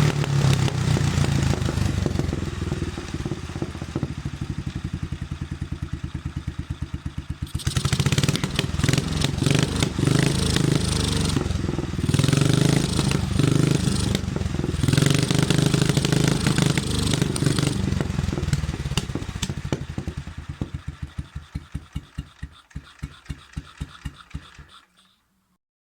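BMW R25/2's single-cylinder four-stroke engine idling, slowing to a slow chug, then revved up in several blips of the throttle. Near the end it is switched off and runs down, the firing beats getting slower and fainter until it stops.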